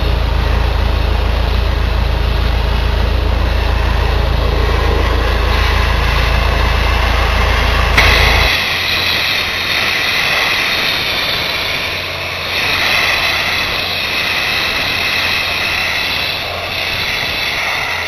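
Sandblasting a car body with #4 sand: the steady hiss of the blast nozzle, at first over a steady low engine drone. About eight seconds in the sound changes abruptly: the drone drops out and the blast hiss turns higher and brighter.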